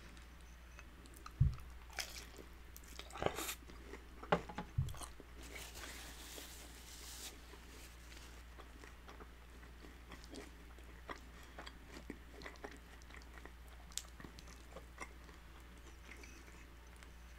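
Close-up chewing and crunching of crispy fried birria tacos, with a run of crackling bites in the first five seconds and lighter, scattered crunches after that. A couple of dull knocks come in among the first bites.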